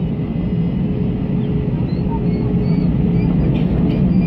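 Jet airliner cabin noise heard from a window seat: a steady rumble of the engines and airflow as the plane rolls on the runway for takeoff, growing a little louder toward the end.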